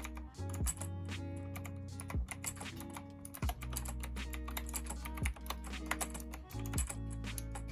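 Typing on a KnewKey Chic mechanical keyboard: a fast, uneven run of key clicks. Lofi music with a steady beat plays under the typing.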